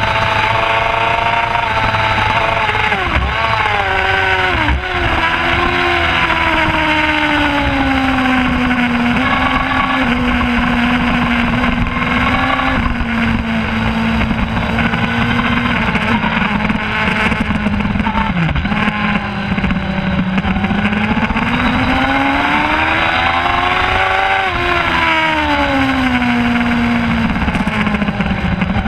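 Middleweight superbike engine heard from onboard at racing speed over a steady rushing noise. Its pitch falls in jagged steps a few seconds in, holds fairly level, then climbs and drops again near the end.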